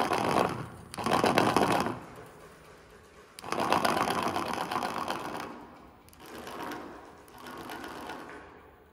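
Fast buzzing rattle of a steel-and-abaca-paper sound sculpture, its paper bowls shaken by a speaker playing a score of heartbeats and sine tones. It comes in five swells of a second or two, the longest about halfway, and the last two are fainter.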